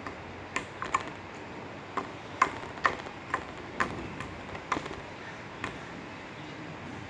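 Golden glitter slime being pressed and poked by hand, giving a run of about a dozen sharp, irregular clicky pops of trapped air, which stop about six seconds in.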